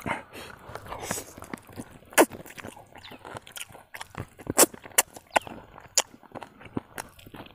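A man eating chicken curry with his hands, close to a clip-on microphone: wet chewing and smacking, broken by sharp, irregular crunches and clicks as he bites into the chicken and its bones.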